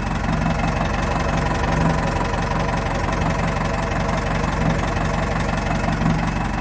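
Four-cylinder inboard marine diesel engine idling with a steady, even purr, running smoothly on its freshly rebuilt water pump.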